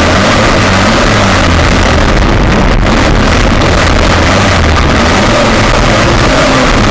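Engine of a 1/6-scale Yankee CrossControl RC car running hard, its pitch rising and falling with the throttle, heard from a camera mounted on the car itself.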